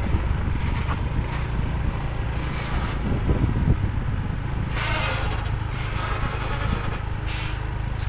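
Heavy tractor-trailer rig hauling an excavator on a lowboy trailer rumbling along slowly over a rough road, with short air hisses from the air brakes about five seconds in and again near the end.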